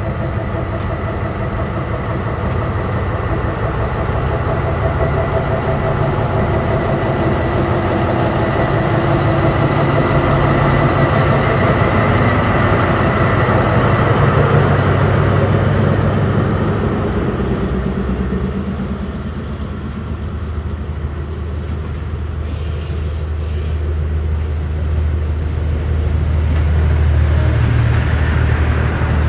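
Diesel-electric locomotive idling at a standstill: a steady low drone with several steady engine tones above it. The higher tones fade about two-thirds of the way through, and the low drone grows stronger near the end.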